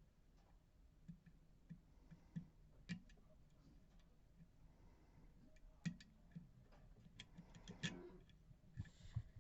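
Faint, irregular clicks and ticks of a pick working the pins of a Mul-T-Lock Interactive dimple lock held under tension, with a brief scrape about eight seconds in.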